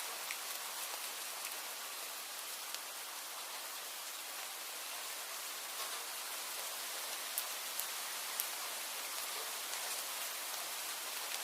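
Steady rainfall, an even hiss with scattered sharper drip ticks, a few standing out in the second half.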